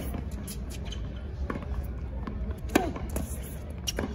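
Tennis rally: racket strikes on the ball about every second and a half, the loudest at the very start as the near player hits.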